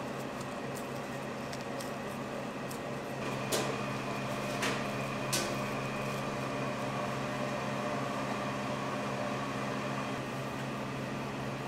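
Steady machine hum that grows slightly fuller about three seconds in, with three light clicks spread over the next two seconds.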